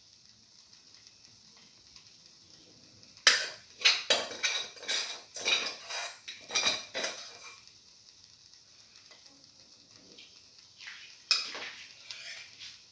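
A spoon clinking and scraping against a stainless steel frying pan while spreading banana-coconut filling over pancake batter: a quick run of strokes starting about three seconds in and lasting a few seconds, then a couple more near the end.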